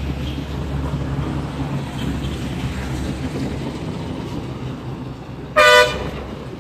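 A vehicle horn toots once, briefly and loudly, near the end, over a steady low rumble.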